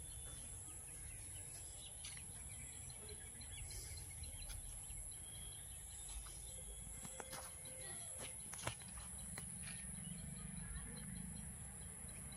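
Quiet rural outdoor ambience: a steady high-pitched insect drone with scattered faint bird chirps over a low rumble, and one sharp click about two-thirds of the way through.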